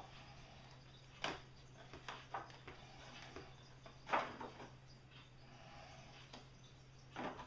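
A few light knocks and clicks from objects being handled and set down, the loudest about four seconds in, over a steady low hum.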